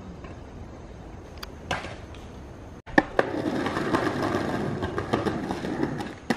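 Skateboard wheels rolling over rough concrete, starting about halfway through. Near the end there is a sharp wooden clack as the board flips during a trick.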